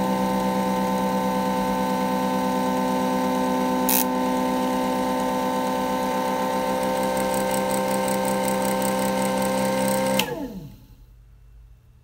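Electric motor spinning a wooden disc of neodymium magnets at high speed with a steady whine, one brief click about four seconds in. About ten seconds in it is switched off and the whine falls in pitch and fades as the disc spins down.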